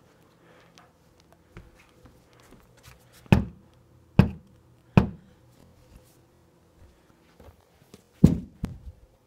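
Three knocks on a door, about a second apart, then another heavy thump near the end with two lighter ones after it.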